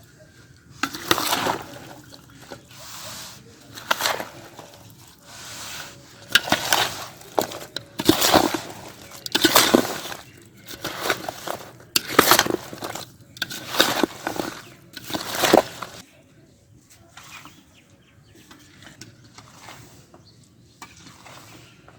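Cut lemons being tossed and mixed with oil and ground spices in a large vessel for lemon pickle: a run of noisy mixing strokes about once a second that stops about 16 seconds in, leaving only faint handling.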